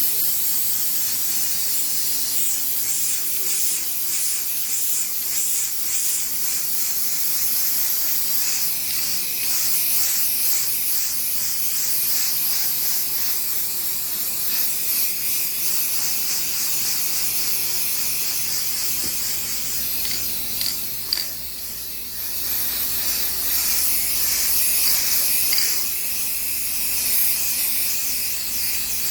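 Aerosol spray paint can hissing as it sprays a coat of paint onto a microwave, with a short break and a click about two-thirds of the way through.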